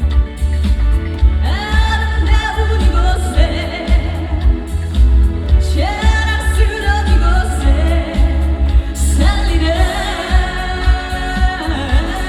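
A female singer performing live over an amplified band with heavy bass, singing phrases that end in long held notes with vibrato.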